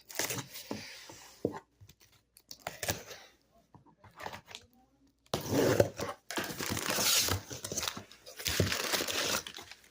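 A cardboard shipping box being opened by hand: scattered clicks and rustles, then, about halfway through, a loud run of tearing and crumpling as the tape and packing material are pulled away.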